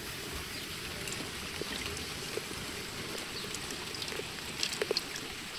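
Steady rain falling, with lemon juice trickling into a plastic jug of water as a lemon is squeezed by hand. A few small drips land near the end.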